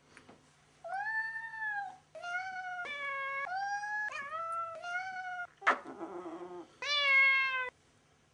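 Domestic cat meowing in protest while being held and cuddled against its will: one drawn-out meow, then a quick run of about five meows, a rougher, lower cry, and a last loud meow near the end.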